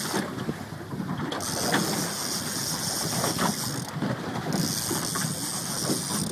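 Fishing reel's mechanism clicking and ratcheting as a hooked fish is fought on a trolling rod, under wind rumbling on the microphone. A high hiss comes and goes in stretches.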